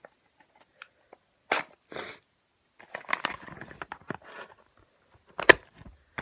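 A flathead screwdriver scraping and prying at the seal of a cardboard box, in short irregular scratches and knocks, with a sharp click about five and a half seconds in.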